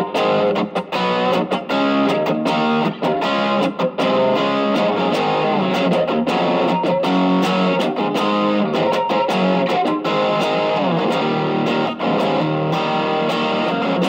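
Electric guitar, Stratocaster-type, played through an Ibanez TS808 Tube Screamer fitted with a JRC 4558D op-amp chip, set for low gain. Strummed and picked chords with a lightly overdriven tone, changing every fraction of a second, with a few brief gaps between phrases near the start.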